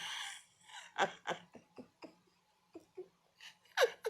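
A person laughing softly under their breath: a string of short, breathy chuckles.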